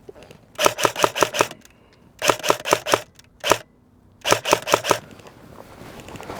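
Airsoft rifle firing quick strings of shots, about five or six sharp cracks in each string, three strings with a single shot between the second and third.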